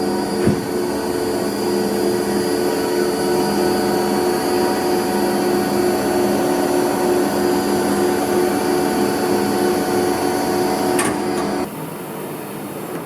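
Structural-steel machine tool running under power, a steady hum of several held tones over a rushing noise, with a short knock about half a second in. Near the end the tones cut off suddenly and a quieter hum is left.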